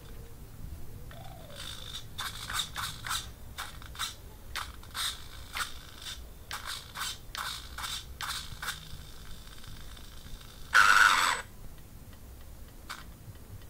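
Sharp clicks and taps from hands handling a small RC car and its transmitter, about twenty of them in quick succession, then about ten seconds in a loud rasping burst under a second long, and one more click near the end.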